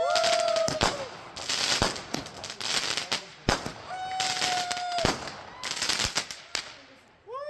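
Fireworks going off: repeated sharp bangs and several stretches of crackling, with a couple of short whistles that hold and then fall.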